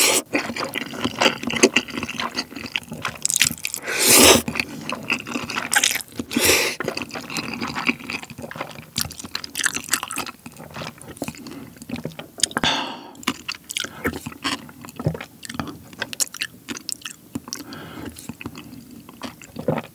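Close-miked slurping of jjajangmyeon noodles in thick black bean sauce, with wet chewing and smacking between mouthfuls. Several loud slurps stand out among the steady clicky chewing.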